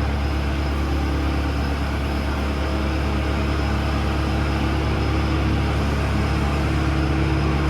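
Steady low mechanical hum of a running machine, with a few steady tones above it and no change in level.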